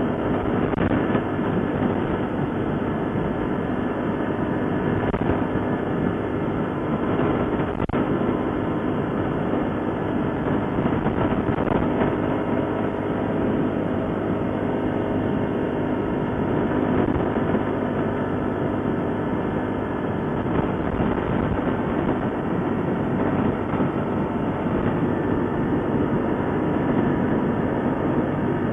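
ATV engine running steadily while riding, with a constant rough rumble and rattle.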